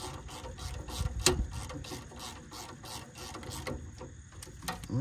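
Hand ratchet with a 5/16 Allen socket clicking in quick strokes, about four clicks a second, as it runs the bolts of a cast-aluminum front differential cover snug before the gasket maker sets. One sharper click comes about a second in. The clicking stops about three and a half seconds in, with a few single clicks near the end.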